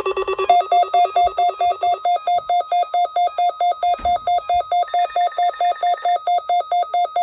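Electronic alarm of a weather alert radio beeping rapidly, about four beeps a second, stepping up to a higher pitch about half a second in. The receiver is sounding its alert for the NOAA Weather Radio required weekly test.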